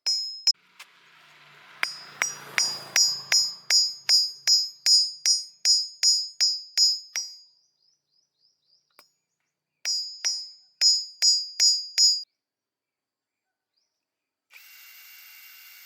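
Hammer tapping on metal parts in a regular rhythm, about three strikes a second, each strike ringing high. There are two runs of strikes, and a steady whir starts near the end.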